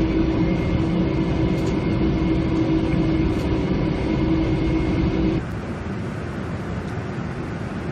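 Steady rumble and airflow noise on the flight deck of a Boeing 747-400, with a steady hum over it; about five seconds in the sound drops abruptly to a quieter, steady rush without the hum.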